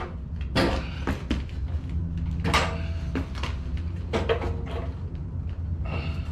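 Metal generator parts clanking and scraping as they are handled and fitted: several separate knocks and scrapes, some with a brief metallic ring, over a steady low hum.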